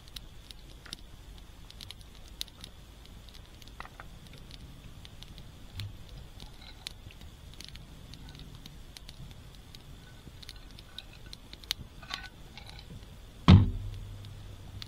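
Wood fire crackling in a stainless-steel fire pit, with scattered sharp pops. One loud thump near the end.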